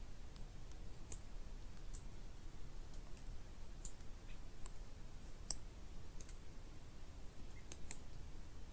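Woodland ambience heard from inside a tent: sparse, irregular small ticks and clicks over a faint low background rumble, with two sharper ticks about halfway through and near the end.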